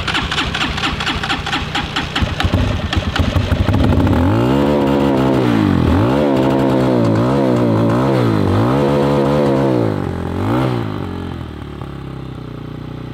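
RPS Hawk 250 dirt bike's single-cylinder four-stroke engine running with a clattery idle, then revved up and down several times in quick succession, a last short blip, and back to idle near the end.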